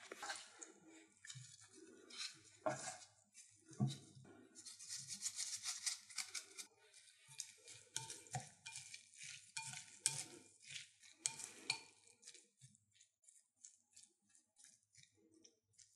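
Utensils stirring and tossing spinach with a ground black sesame dressing in a bowl: irregular clicks and scrapes against the bowl, thinning to light, sparse taps near the end.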